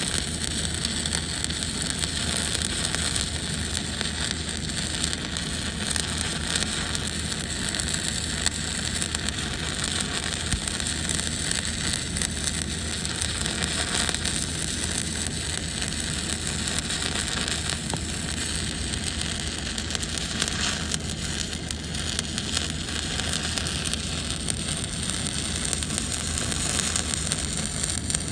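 Electric arc welding along a seam on a large steel cylinder: the arc crackles and hisses steadily and without a break.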